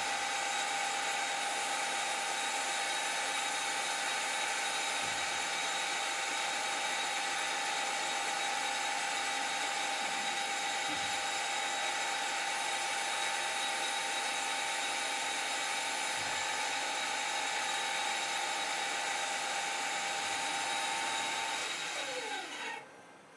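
Schutte WU 400 grinding machine running with its grinding wheel spinning: a steady high whine over a hiss. Near the end the whine slides down in pitch and fades as the spindle winds down.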